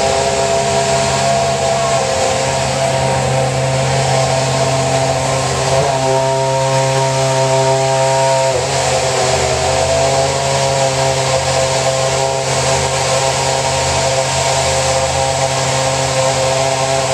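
Mercedes-Benz Formula 1 car's engine running steadily at a held, fast idle, its buzzy note shifting slightly in pitch for a couple of seconds partway through.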